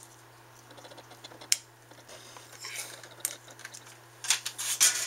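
Hands handling the small metal and plastic parts of a CD-ROM drive being taken apart. There are sharp clicks about a second and a half in and again around three seconds, then a cluster of clicks and rattles near the end, over a faint low hum.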